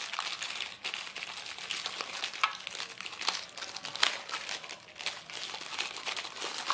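Plastic packaging crinkling and rustling, with irregular small clicks and taps, as a battery charger is unpacked from its box.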